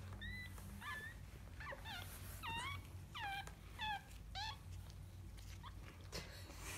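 Dog whimpering: about seven short, high-pitched cries, each dipping in pitch, over the first four and a half seconds, with a steady low hum underneath.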